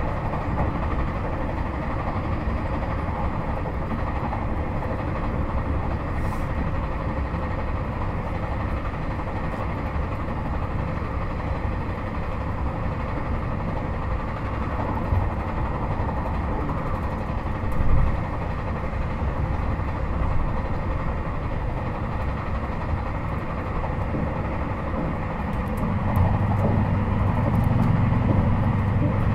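Inside a JR Hokkaido 721-series 4000 subseries electric train car (Toshiba GTO inverter) running between stations: steady rumble of wheels on rail and running gear. A single short thump comes about 18 seconds in, and near the end a louder low steady hum comes in.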